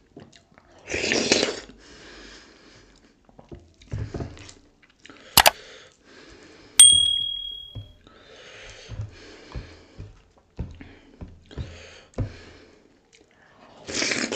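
Close-miked eating sounds of dhido and sisnu: chewing, lip smacks and soft knocks throughout, with two short hissing bursts at the beginning and near the end. About halfway through there is a sharp click, then a clink that leaves a metal dish ringing with one clear tone for about a second.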